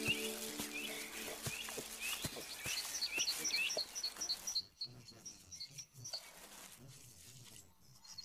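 Wild boar piglets rooting through dry leaf litter, with clicking and rustling of leaves and a short pitched grunt at the very start. Birds chirp and give a fast high trill in the background.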